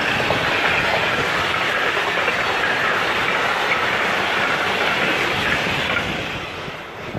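Container freight train's wagons rolling past, steel wheels running on the rails in a steady noise; it fades near the end as the last wagon goes by.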